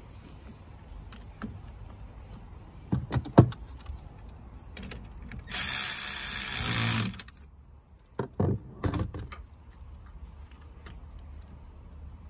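A cordless power ratchet runs for about a second and a half halfway through, working a nut at a Tesla Model Y's 12-volt battery, and cuts off sharply. Sharp clicks and knocks of tools and metal parts come about 3 s in and again twice around 8 to 9 s in.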